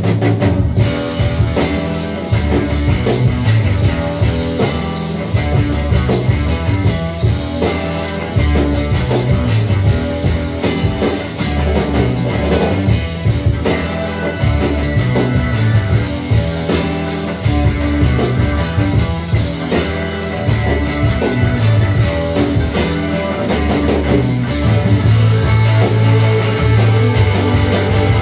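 Rock music with guitar and drum kit, played through a Fosi Audio TB10D amplifier and its speakers as a sound test.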